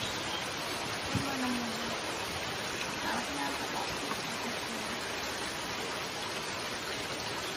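Steady rush of flowing water, an even hiss with no break, with a short faint murmur of a voice about a second in.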